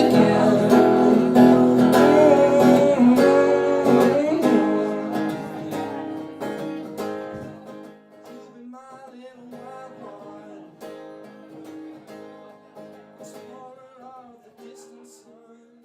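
Song with strummed acoustic guitar and singing, fading out from about four seconds in and dying away faintly to the end.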